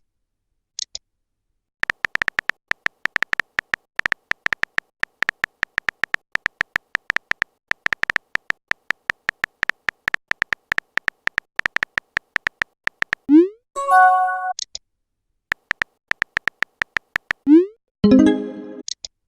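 Messenger-app sound effects: a long run of rapid keyboard typing clicks. Twice it is broken by a short rising swoop and chime, the sound of a chat message being sent or arriving, once about 13 seconds in and again near the end.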